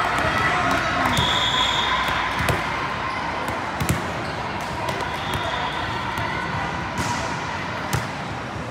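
A volleyball thuds on the hard court floor twice as the server bounces it, then the serve is struck with a sharp slap near the end, over the murmur of spectators in an echoing gym.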